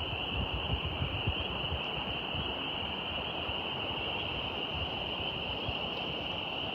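Outdoor nature ambience: a steady high-pitched drone that never changes, over an uneven low rumble of wind on the microphone.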